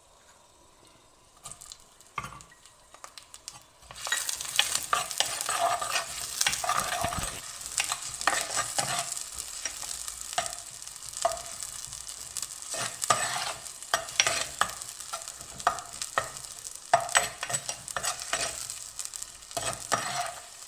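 Sliced onions frying in hot oil in a clay pot: a few light clicks at first, then a loud sizzle starts about four seconds in as the onions hit the oil. A steel spatula stirs them, scraping and clicking against the pot throughout.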